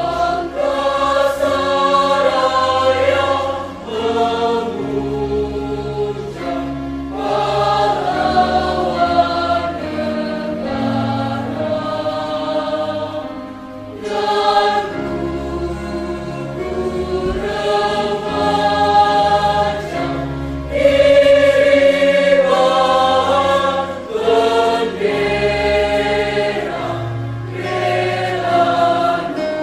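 A choir singing a slow, solemn song in long, held chords.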